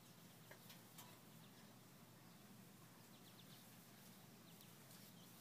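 Near silence: faint outdoor background hiss with a few faint short clicks.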